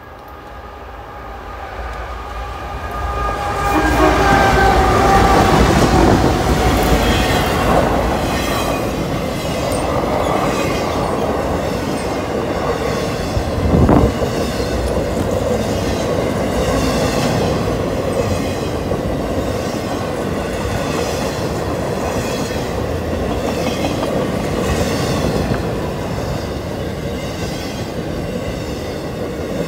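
CSX freight train led by GE Evolution Series locomotives, an ES44AH and an ES40DC, approaching and passing close by: the locomotive horn sounds as the train draws near, then the diesels go by and a long string of intermodal cars rumbles past with wheels clattering over rail joints, with one sharp bang about a third of the way through.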